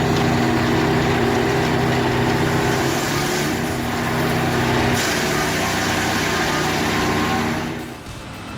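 An engine running steadily, its level dropping sharply near the end.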